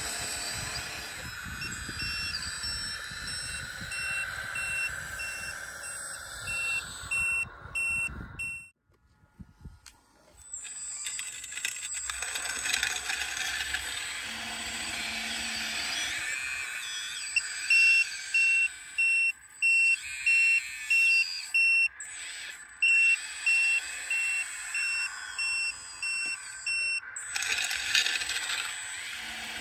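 Radio-controlled scale Volvo L260H wheel loader running, with a steady motor whine and hum under a high reversing-alarm beep that repeats about twice a second in two stretches, the second louder. The sound breaks off for about a second around nine seconds in.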